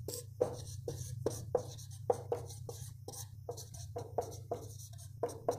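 Marker pen writing on a whiteboard: a run of short strokes, about three or four a second, over a steady low hum.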